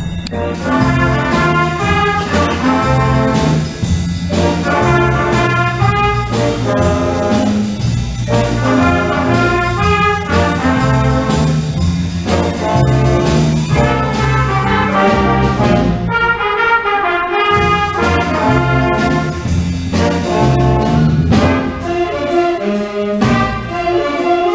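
Middle school band playing live, with trombones and trumpets carrying the tune over a low tuba and bass line in short rhythmic phrases.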